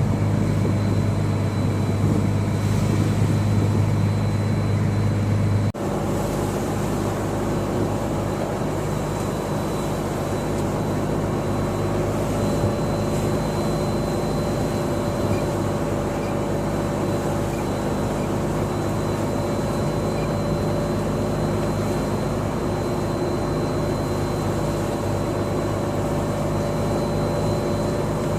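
A fishing boat's engine runs steadily: a constant droning hum with a faint high whine. Its tone changes abruptly about six seconds in, then stays steady.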